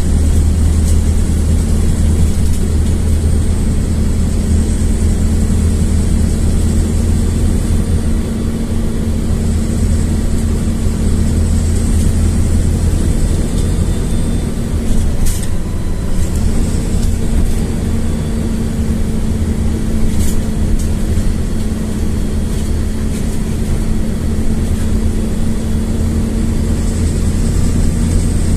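LiAZ-4292.60 diesel city bus in motion, heard from inside the cabin: a steady low engine drone and road noise. A hum in the drone breaks off briefly about halfway through, a faint high whine rises and falls a few times, and there are two sharp clicks about 15 and 20 seconds in.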